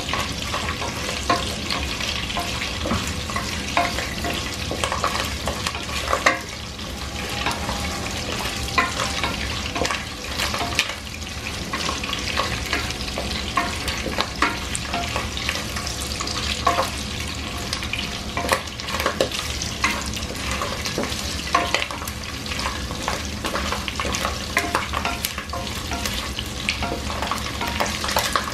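Cubed meat sizzling in hot oil in a pot with many short crackling pops, stirred with a wooden spoon.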